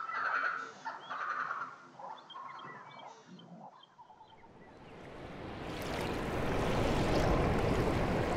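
Short animal calls and small chirps over the first three seconds or so. Then, from about halfway, a rushing water noise swells steadily louder.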